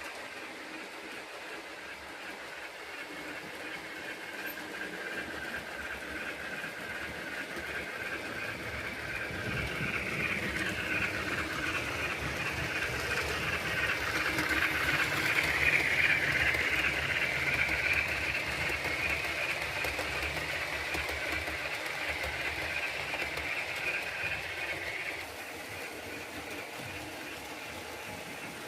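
Model steam locomotive with a DCC sound decoder running on a layout, its chuffing mixed with the rumble of wheels on the track. It grows louder as it comes closer, is loudest around the middle, then fades, dropping off sharply a few seconds before the end.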